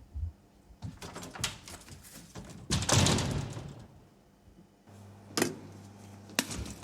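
Door sounds with knocks and clicks, and a louder rushing clatter about three seconds in that fades out over a second. A low steady hum comes in near the end with a couple of sharp clicks.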